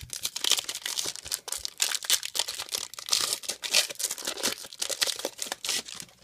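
Foil wrapper of a 2006 Benchwarmer World Cup Soccer trading-card pack being torn open and crinkled by hand: a dense run of crackles and rips, ending as the cards are pulled out.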